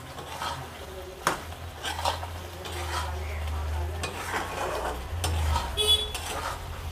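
A spatula stirring fried cabbage balls through thick, simmering Manchurian sauce in an iron kadai, with irregular scrapes and knocks against the pan and a light sizzle. A brief ringing clink comes near the end.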